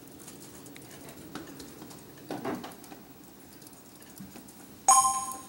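Light typing on computer keyboards, faint scattered clicks. Near the end, a sudden bright two-tone electronic chime rings out and fades.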